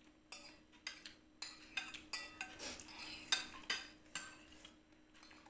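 Metal spoons clinking and scraping against bowls and plates while eating: a dozen or so light, irregular clinks over about four seconds, the loudest a little past three seconds in.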